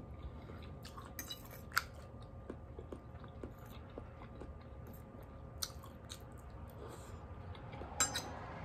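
A person chewing a mouthful of steamed cauliflower and collard greens close to the microphone: soft, irregular mouth clicks and crunches, with a few sharper clicks, one about two seconds in and another near the end.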